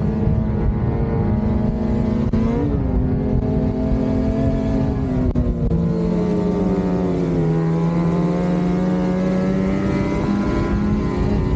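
Lynx Shredder RE 850 Turbo snowmobile's turbocharged two-stroke twin, with a Jaws trail muffler, running under way on the trail. Engine speed rises briefly about two and a half seconds in, sags through the middle, then climbs again toward the end.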